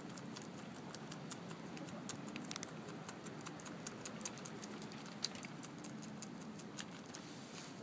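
Groundhog chewing a soft piece of banana held in its paws, its mouth making irregular small clicks and smacks, several a second.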